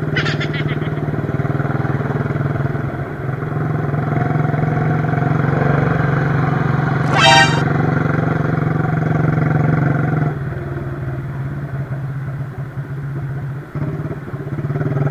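Motorcycle with a loud aftermarket Sinaeng exhaust pipe running hard at a steady engine speed, with a short horn beep about seven seconds in; after about ten seconds the exhaust note eases off and gets quieter.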